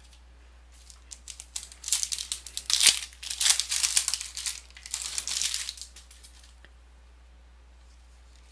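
A trading card pack's wrapper being torn open and crinkled, a run of crackly rustling lasting about five seconds, starting about two seconds in.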